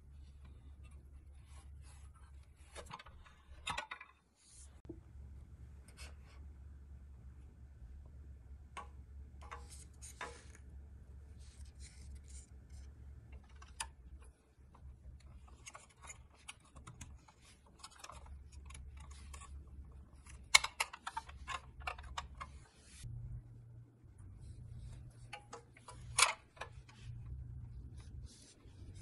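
Scattered small clicks and taps of hand work on a pressed-steel toy's parts, with a couple of sharper knocks about two-thirds of the way through, over a low steady hum.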